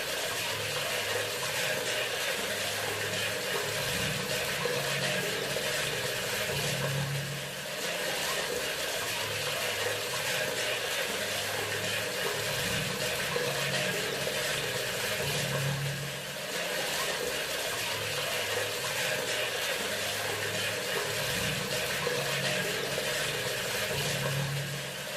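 Water running steadily from a bathroom sink faucet, a continuous rushing flow with a low hum underneath and a slight dip in level about every eight or nine seconds.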